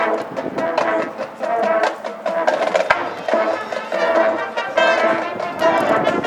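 Marching band playing a softer passage: brass holding repeated sustained notes over light, clicking percussion.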